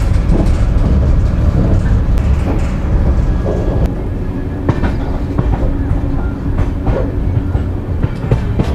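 Passenger train running along the track, heard from inside the guard's compartment: a steady low rumble of the wheels with sharp clacks over the rail joints, more of them in the second half.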